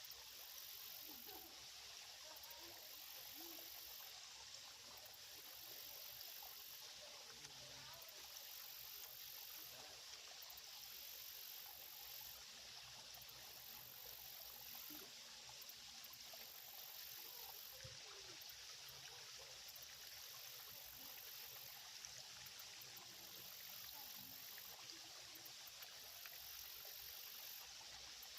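Faint, steady trickle and flow of a small, shallow creek.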